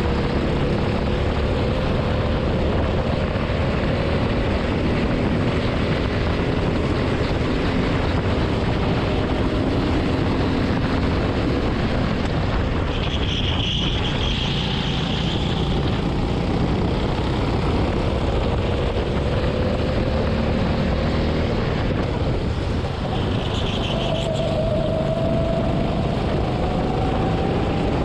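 Go-kart engine running under racing load, its pitch climbing slowly several times as the kart accelerates out of corners, under loud wind noise rushing over the microphone. A few short, high hissing sounds come in about halfway through and near the end.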